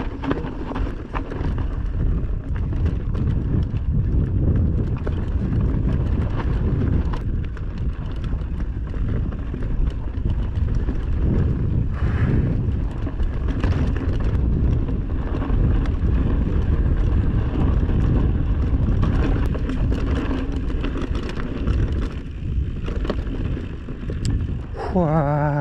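A vehicle travelling over a rough road: a steady low rumble of running gear and tyres, with wind on the microphone. A short whine falls steeply in pitch near the end.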